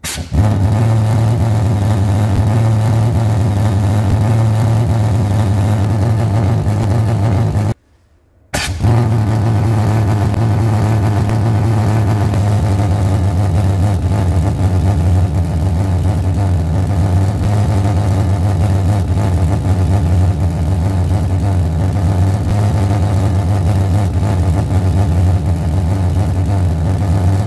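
A glass-jar pulse jet fuelled with alcohol is running: pulse combustion in and out of the small hole in the lid makes a loud, steady, low buzz. It cuts out for under a second about eight seconds in, then starts again.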